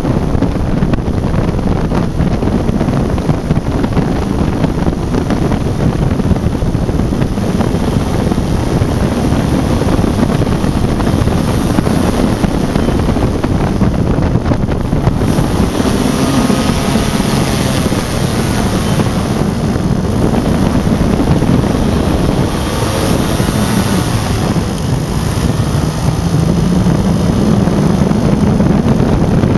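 Quicksilver MX ultralight's two-stroke engine running steadily, buried in heavy wind noise on the microphone. Near the end the engine note rises a little.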